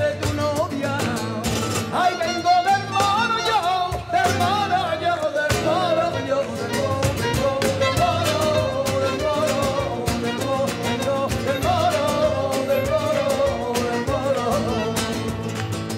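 Live flamenco music: a wavering, ornamented sung melody over violin and guitar, driven by a steady stream of palmas handclaps and hand percussion.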